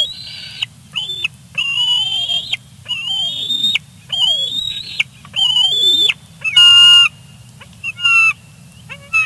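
Juvenile bald eagle squeeing: a run of high, whining calls, most rising in pitch, each about half a second to a second long, with a louder, steadier call about two-thirds of the way through and shorter chips near the end. A low steady hum runs underneath.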